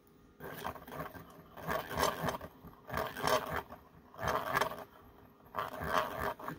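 Small wire whisk stirring dry clear acrylic nail powder and purple mica pigment in a glass bowl: a scratchy rustle in about five bursts, roughly one a second.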